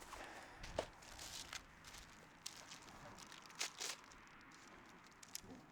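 Faint handling noise: scattered light rustles and a few short knocks, the sharpest about a second in and two more near the middle.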